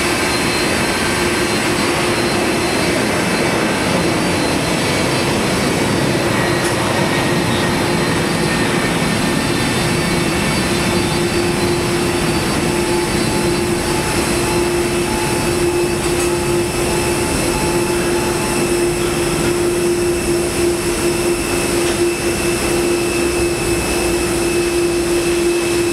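Airbus A330 jet engines at taxi idle: a steady whine and rush with a constant low hum that grows a little louder near the end.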